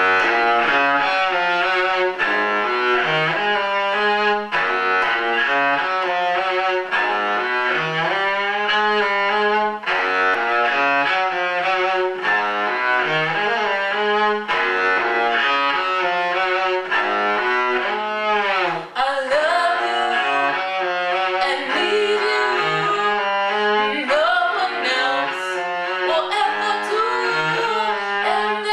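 Solo cello playing a slow song, starting abruptly: a low note figure repeats about every two seconds under a melody. A note slides down and back up about two-thirds of the way through.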